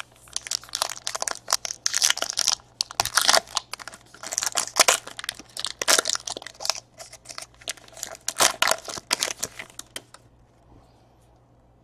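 Gold foil wrapper of a trading-card pack being torn open and crumpled by hand, a dense crinkling and ripping that stops about ten seconds in.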